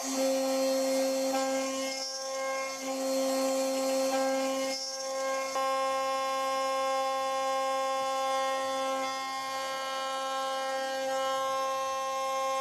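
Homemade CNC router's spindle running with a steady whine while a small end mill cuts an aluminium bar. It first cuts a hole, then mills around the bar's end, and the cutting note changes briefly about five seconds in.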